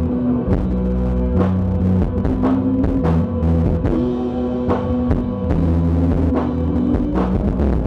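A live band playing a song: drum hits over held, slowly changing low notes, with no singing.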